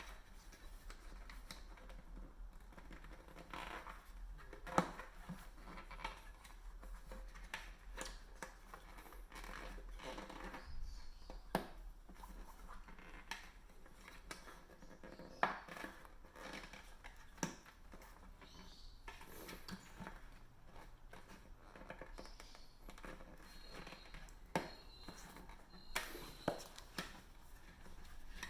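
Tyre bead and tyre lever scraping, rubbing and clicking against the wheel rim in scattered, faint handling noises as the last section of a Pirelli P Zero Race TLR tubeless road tyre is worked onto the rim.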